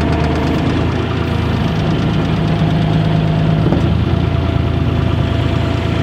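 John Deere 250 skid steer's diesel engine running steadily while the loader's foot pedal works the hydraulics to raise and lower the bucket. The engine note shifts for a couple of seconds in the middle.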